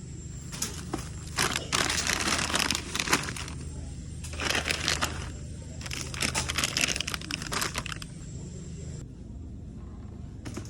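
Bags or food packaging being handled, crinkling and rustling in three bursts with sharp crackles, over a steady low hum.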